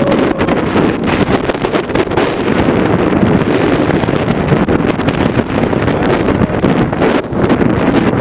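Strong wind blowing across the microphone, a loud, steady rush that wavers in strength.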